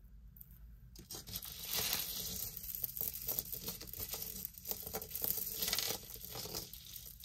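Crinkling and rustling of a bag being handled and rummaged through, with many small clicks. It starts about a second in.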